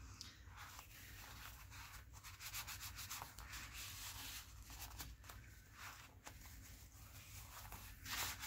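Faint, irregular rubbing of paper on paper as a freshly glued paper piece is pressed down on a journal page and the excess glue wiped from its edges with a paper napkin; one stroke near the end is louder.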